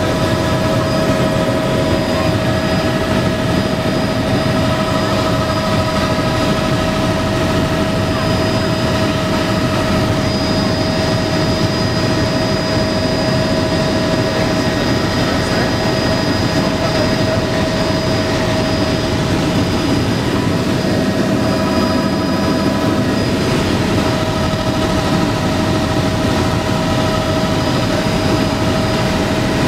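Helicopter cabin noise in flight: the engine and rotors run steadily, with a constant high-pitched whine over a dense rumble. It is heard from inside the cabin.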